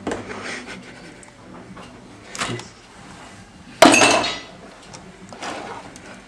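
Kitchen clatter while a sandwich is made: a knife, jars and a plate knocking and clinking on the counter, with one sudden loud clatter about four seconds in.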